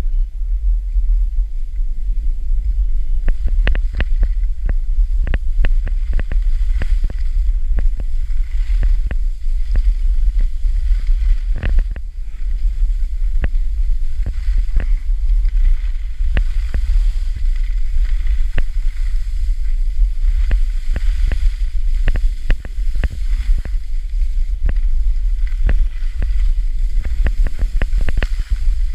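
Skiing downhill: a steady low wind rumble on the microphone, with many irregular clicks and knocks as the skis run over the snow.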